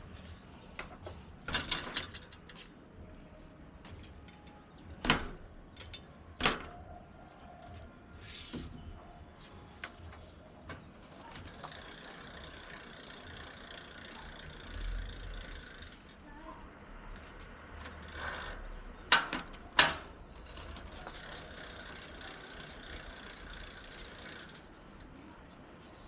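Mountain bike's rear freewheel ratcheting fast in two stretches of about four seconds each, with scattered knocks and clicks of the bike being handled.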